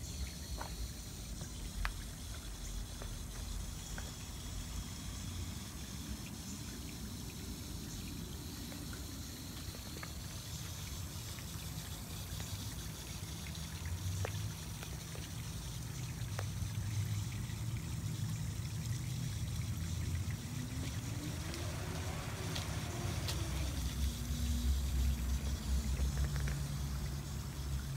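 Water from a garden hose trickling and pouring through small channels dug in clay soil, over a steady low rumble. A faint tone rises and falls briefly about three-quarters of the way through.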